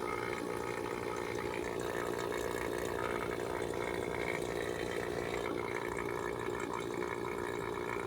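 Refrigerant vacuum pump running with a steady, even hum, evacuating moisture from the system.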